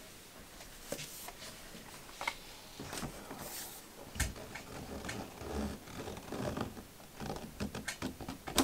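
Scattered knocks, clicks and scraping as a black metal stovepipe is handled and pushed up through a tight rubber roof seal, with short rubbing sounds of the pipe against the rubber.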